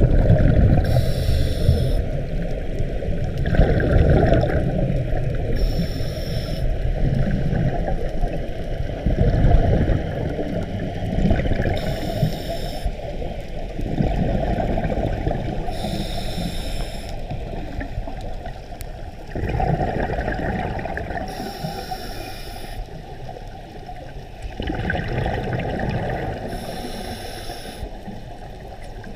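Underwater scuba breathing through a regulator: a hissing burst of exhaled bubbles about every five seconds, six times, over a steady low, muffled water rumble.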